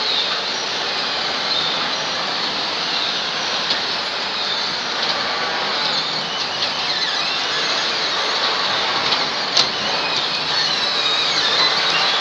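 Palm kernel nut elevator and the surrounding crushing-mill machinery running steadily: a loud, dense mechanical noise with faint high metallic squeals, and one sharp click about four-fifths through.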